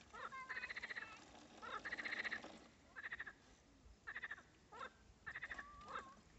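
A chorus of frogs calling: short croaks made of rapid pulses, each about half a second long, repeating roughly once a second.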